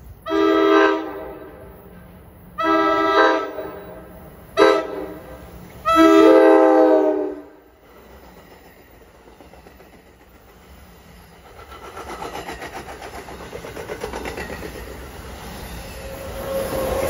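NJ Transit Multilevel commuter train sounding its multi-note chime horn in four blasts, long, long, short, long: the standard grade-crossing horn signal. Then the train rumbles past at speed, the wheels clattering over the rails louder and louder toward the end.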